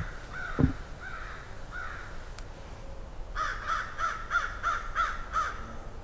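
American crows cawing in the woods: fainter calls in the first two seconds, then a quick run of about eight caws starting a little past the middle. A low thump about half a second in.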